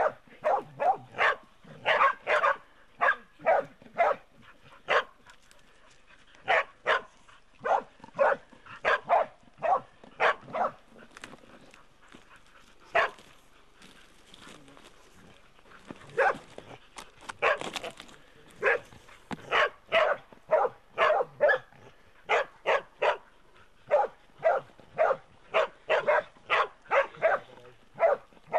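Pig-hunting dogs barking in quick runs at a bailed-up wild pig they are holding at bay, with a lull of a few seconds midway.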